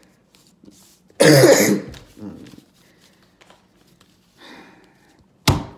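A person coughs, about a second in. A second short, sharp sound comes near the end, with faint light clicks in between.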